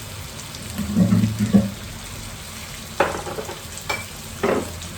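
Onions and tomatoes frying in a pot with a steady sizzle, stirred with a few sharp knocks of a utensil against the pot in the second half. A short low hum about a second in is the loudest moment.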